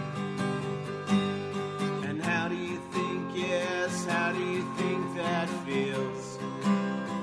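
Background music: a song led by strummed acoustic guitar, with a wavering melody line over it.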